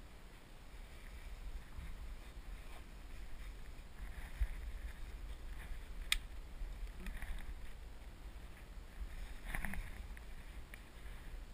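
Wind buffeting the microphone as a steady low rumble, with two faint sharp clicks about four and six seconds in.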